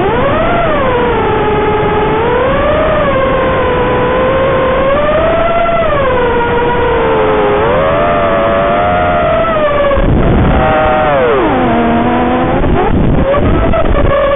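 FPV quadcopter's brushless motors whining, the pitch rising and falling continuously with the throttle. The pitch dips low about three-quarters of the way through, with a couple of short rushes of noise near the end.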